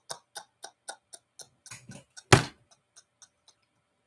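A rapid series of light, sharp clicks, about four a second, with one louder thump about two and a half seconds in and a few scattered clicks after it.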